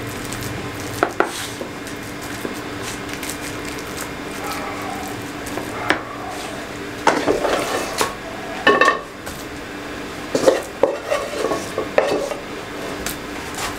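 Wooden spatula pressing, scraping and smoothing a thick, sticky carrot-halwa mixture into a plastic box, with several sharp taps of the spatula against the plastic. The scraping and taps come in two clusters in the second half.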